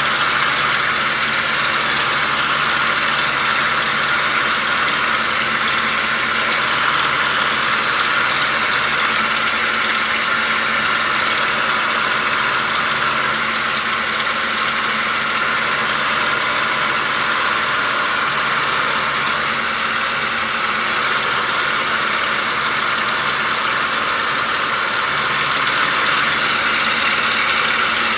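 P-51D Mustang's Packard Merlin V-12 engine running steadily in flight, heard from inside the cockpit. A strong, even hiss of rushing air lies over the engine's drone.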